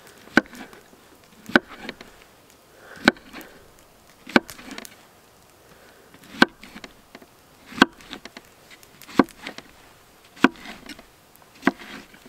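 Kitchen knife slicing mushrooms on a wooden cutting board: the blade knocks sharply on the board with each cut, nine slow, even strokes about one every second and a half.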